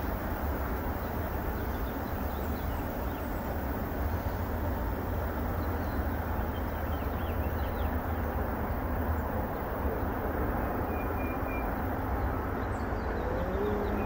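Steady outdoor rushing noise with faint, brief bird chirps now and then; a low steady hum comes in near the end.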